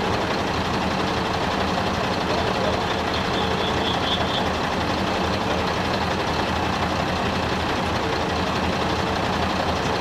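An engine running steadily at a constant speed, with a steady hum under it. About three seconds in there is a brief high-pitched beeping lasting about a second.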